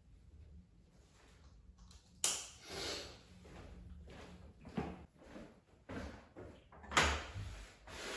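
Footsteps on a concrete floor and a backpack rustling as it is shouldered, with a few sharp knocks; the loudest, about seven seconds in, is the wooden door's latch being worked as the door is opened.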